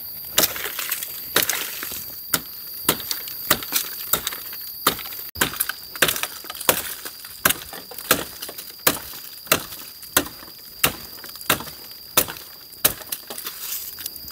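Dry wood being chopped for firewood: sharp, regular strikes about one and a half times a second.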